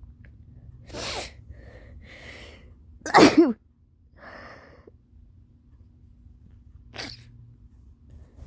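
A woman sneezing: breathy inhales of a buildup, then one loud sneeze about three seconds in, followed by softer breaths and a brief sharp breath sound near the end.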